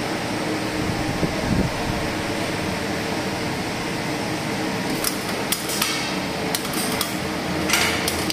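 A steady background hum, then from about five seconds in a series of sharp knocks, several coming close together near the end.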